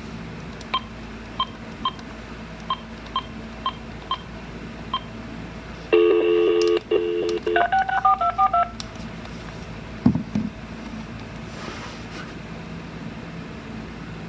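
VTech cordless phone handset on speakerphone: about eight short key-press beeps, then a steady dial tone about six seconds in, cut short by a quick run of touch-tone digits as the number dials out. A single click follows around ten seconds in.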